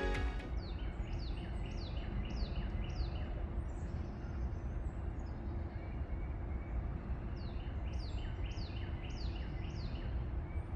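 A songbird singing two phrases of five or six clear down-slurred notes each, about two notes a second, the first phrase in the opening seconds and the second near the end, over a steady background hiss.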